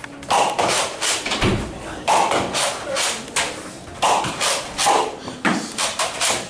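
Nerf Rival Artemis pump-action blaster firing foam balls in a rapid string of sharp, echoing shots, about two a second.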